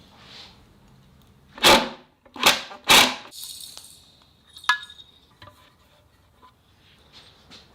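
Three loud, sharp knocks, the first about two seconds in and two more close together within the next second and a half, followed by a lighter click with a brief ring and faint handling noises.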